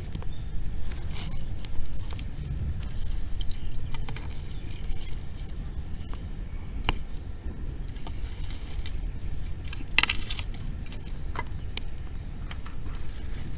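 Wood bonfire crackling, with scattered sharp pops and snaps at irregular intervals over a steady low rumble.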